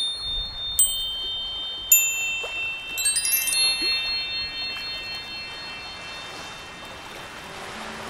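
Ambient background music of ringing chime tones: single high chimes struck about a second apart, then a quick cascade of chimes a little after three seconds in that rings on and slowly fades.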